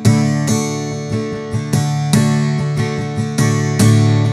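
Acoustic guitar strummed in a steady rhythm, its chords ringing between the strokes.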